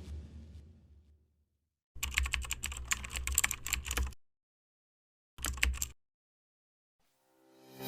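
Rapid clicking like typing on a computer keyboard, in a run of about two seconds and then a short second burst, with silence before and between. Music begins to swell in at the very end.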